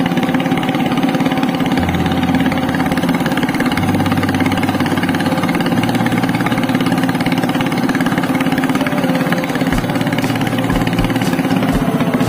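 Engine of a narrow wooden river boat running steadily under way, holding an even pitch and firing rhythm.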